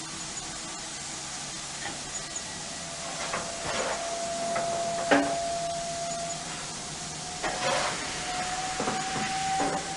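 Steam locomotive standing at the platform, hissing steam steadily. A faint steady tone joins about three seconds in and edges slightly higher towards the end, and there are a few short knocks, the sharpest about halfway through.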